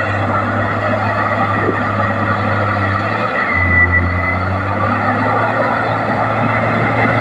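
Komatsu D58P bulldozer's diesel engine running steadily. Its low note dips briefly about three seconds in and then picks up again, with a short high squeal just after.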